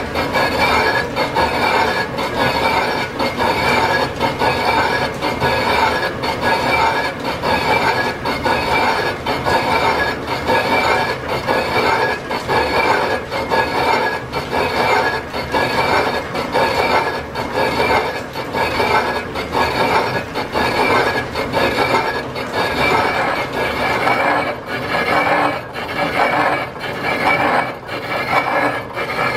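Lathe boring the inside of a piston-ring casting with a boring bar: a steady, loud rasping cut with a ringing whine, pulsing regularly as the chuck turns.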